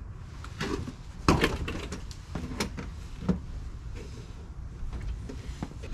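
Knocks and clatters of a thin metal trailer skin panel being pulled free from the wooden frame and handled, a handful of sharp hits with the loudest about a second in.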